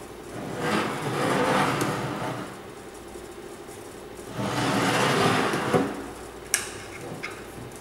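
Wooden parts of a handmade box scraping as they slide against each other, in two long strokes, followed by a few sharp light knocks of wood near the end.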